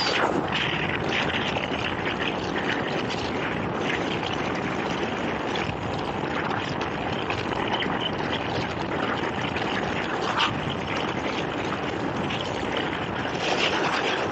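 Rigid inflatable boat running at speed over choppy water: a steady rush of wind, engine and water noise, with short louder splashes of spray breaking against the hull every second or two.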